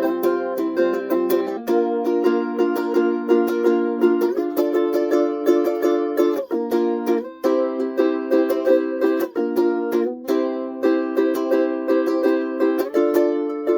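Custom-built NFC five-string ukulele in gGcea tuning (a paired low and high G on the fourth course) strummed in a quick rhythm, the chord changing every two or three seconds.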